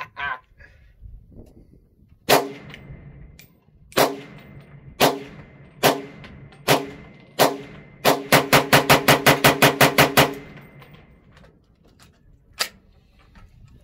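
PSA KS-47 rifle (an AR-pattern rifle in 7.62x39) fired in the open. First come six single shots about a second apart, then a rapid string of about a dozen shots in two seconds, then one last shot.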